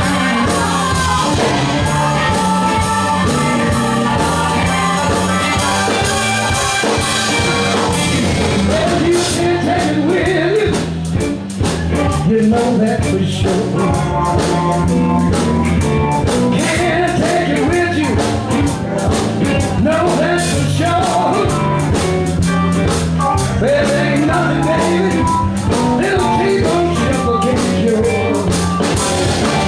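Live blues band playing a shuffle: electric guitar, keyboard and drums, with harmonica at first and a man singing from about ten seconds in.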